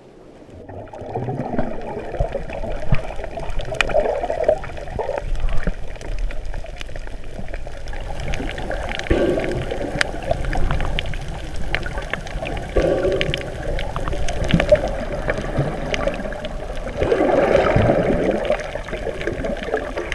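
Underwater sound through a camera's waterproof housing: muffled gurgling and swishing of water with scattered sharp clicks, setting in about a second in.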